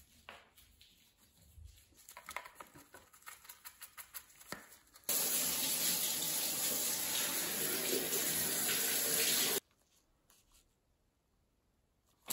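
Pressure washer spraying a water jet onto an alloy wheel rim, a steady hiss that starts about five seconds in and cuts off abruptly some four and a half seconds later. Before it, a brush scrubs the rim in faint, scratchy strokes.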